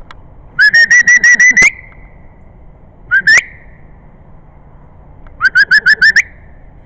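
Three runs of loud, quick whistled notes, each note flicking upward at its end: about eight in a row, a pair near the middle, and about seven more near the end.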